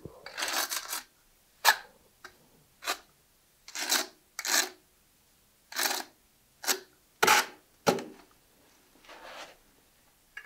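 Notched steel trowel scraping thinset mortar across the backs of porcelain tiles to back-butter them, because the mortar on the floor has skimmed over. It comes as about ten short separate scraping strokes, two of them sharper with a knock about two-thirds of the way through.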